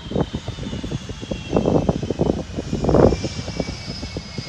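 Boeing 757 jet engines whining as the airliner taxis, the high whine gliding slowly down in pitch, over an uneven, gusty low rumble.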